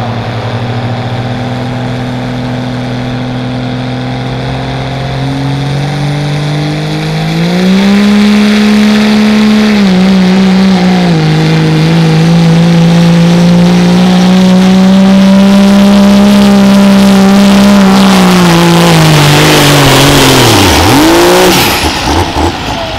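Turbo-diesel engine of a second-generation Dodge Ram 4WD pickup under full load pulling a weight-transfer sled. The revs climb about seven seconds in, dip briefly around ten seconds, and hold high and steady. Near the end the revs fall away sharply as the driver lets off.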